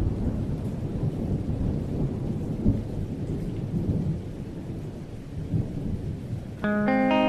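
Thunder rumbling low and continuously over steady rain, with a brief louder swell about a third of the way in. Near the end, distorted guitar music comes in over it.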